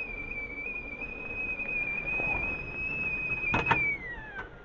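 Stovetop whistling kettle on a gas flame whistling steadily at the boil. Near the end come two sharp clicks, and the whistle slides down in pitch and dies away.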